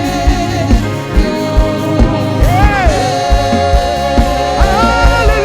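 Live gospel praise music: a singer holds long notes over a band with a steady kick-drum beat, about two to three hits a second.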